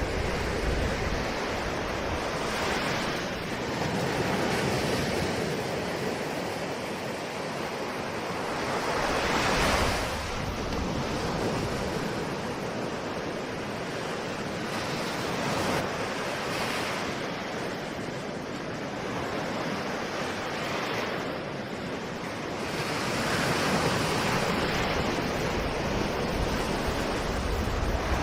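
Ocean waves breaking and washing on a shore, a steady rush of surf that swells and eases every few seconds, with some wind noise.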